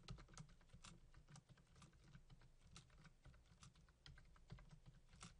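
Computer keyboard typing: a quick, uneven run of faint key clicks.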